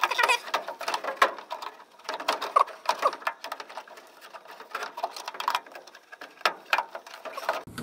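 Handling noise from fitting a Fasco A170 replacement draft inducer blower into a gas furnace. Irregular clicks, knocks and scrapes of its plastic housing against the mounting and vent pipe, with short rubbing squeaks.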